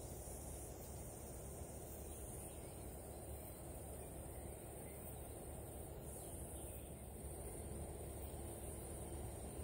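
Quiet outdoor ambience: a steady low rumble and a high hiss, with a few faint bird calls scattered through.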